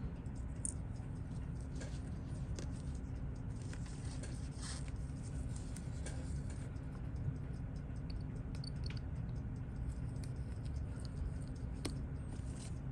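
Scattered light clicks and scratches of small tools and watch parts being handled on a watchmaker's bench, a dozen or so irregular ticks, over a steady low hum.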